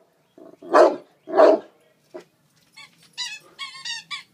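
Adult Saint Bernard barking: two loud, deep barks about a second apart, then a shorter one. Near the end comes a run of short, high-pitched, wavering squeals.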